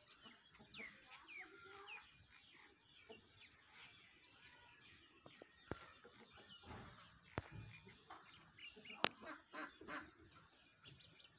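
Faint chirping and clucking of farmyard birds, including chickens, with scattered sharp clicks; the loudest click comes about nine seconds in.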